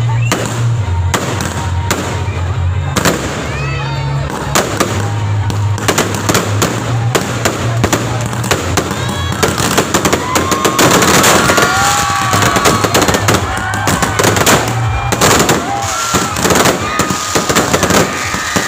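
Fireworks going off in rapid bangs and crackles that grow denser about halfway through, over background music and crowd voices.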